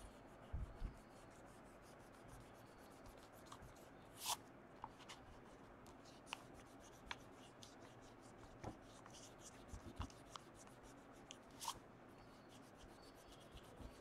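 An eraser rubbing pencil lines off drawing paper, faintly, with scattered light ticks and taps as the paper shifts under the hands.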